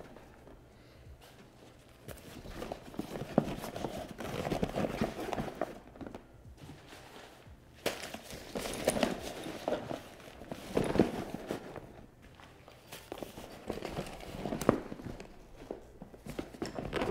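Hands handling a Yeti Panga dry duffel: rustling and crumpling as packing material is pulled out of the bag, with irregular thumps and clicks, and the bag's zipper being pulled further open.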